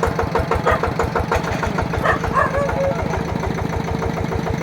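Yanmar single-cylinder diesel engine of a two-wheel walking tractor running steadily, its firing beats coming evenly at about nine a second.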